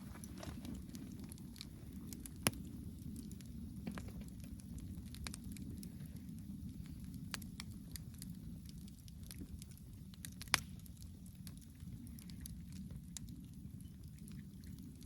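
Wood campfire burning and crackling, with scattered sharp snaps and two louder pops, one early on and one past the middle.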